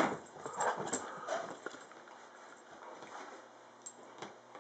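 A dog scrambling onto a couch. Her paws and claws scuff and rustle, louder in the first second or so and then softer, with a few light clicks near the end.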